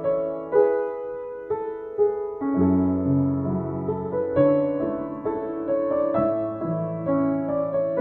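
Yamaha JX113T upright piano played with both hands, freshly tuned: sustained chords over bass notes, with new chords struck every half second to a second.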